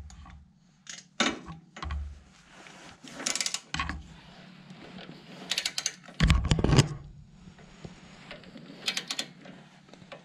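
Ratchet and socket being worked on exhaust header bolts: short bursts of ratchet clicks and metal tool clinks, with one louder knock about six seconds in.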